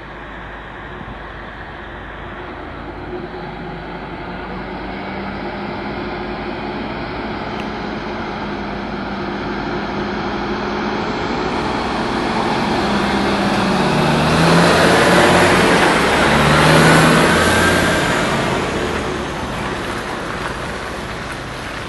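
A motor vehicle's engine running, growing louder for about fifteen seconds to a peak and then fading away.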